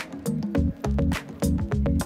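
Background electronic music with a steady beat and a bouncing bass line.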